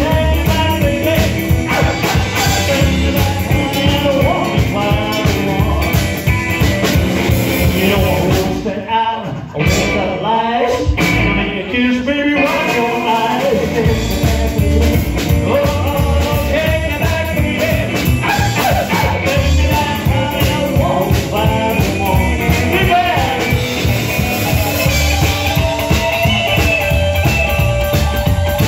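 Live rock and roll band playing: upright bass, electric guitar and drums. About eight seconds in, the bass and drums drop out for around five seconds, then the full band comes back in.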